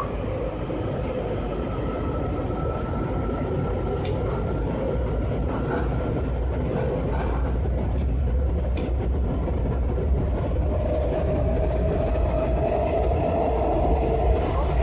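Washington Metro subway train heard from inside the car as it pulls out of a station and picks up speed: a steady rumble of wheels on the track, with an electric motor whine coming in about two-thirds of the way through.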